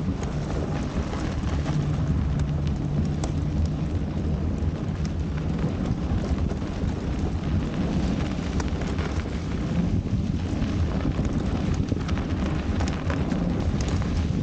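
Steady wind rumble on the microphone of a moving e-bike, mixed with the fat tyres rolling over packed snow, with scattered small clicks.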